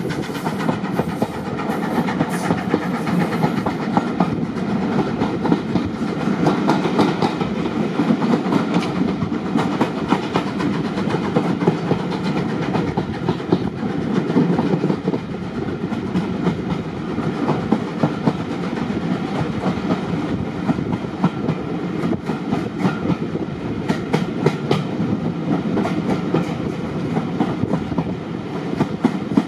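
Passenger coach of a heritage railway train running along the track, heard from the carriage window: a steady rumble with a rapid, uneven clickety-clack of the wheels.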